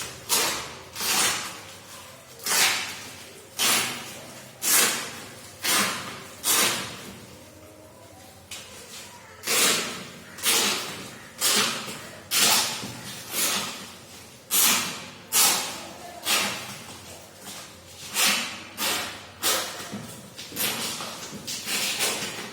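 Plastic packaging wrap being pulled and torn off a cardboard box, a run of sharp rips and rustles about once a second.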